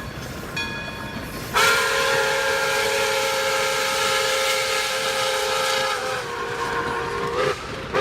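Train whistle blowing: a short toot, then a long chord of several pitches held for about four seconds, which fades and sags slightly in pitch before a fresh blast starts at the end.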